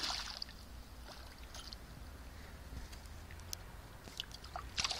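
A released pike splashing at the water's surface as it swims off, a short splash right at the start, followed by faint water movement with a few light ticks. Another brief rush of splashy noise comes near the end.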